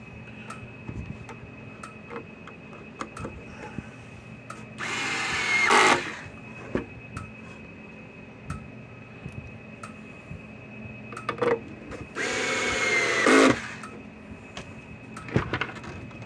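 Cordless electric screwdriver driving two screws into a plastic housing, each run lasting about a second and the two runs about seven seconds apart. The motor's pitch drops as each screw tightens down. Light handling clicks can be heard in between.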